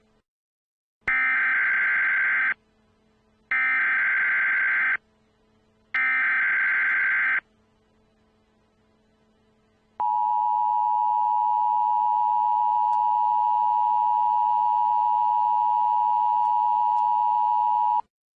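Emergency Alert System signals: three short bursts of the SAME digital header, harsh data screeches about a second apart, then after a short gap the steady two-tone EAS attention signal held for about eight seconds and cutting off abruptly.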